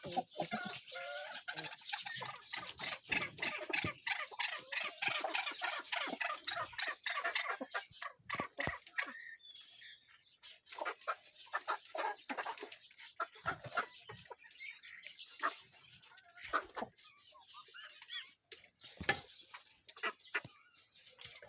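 Fowl clucking and calling, many short calls overlapping at first, thinning out after a short lull about halfway.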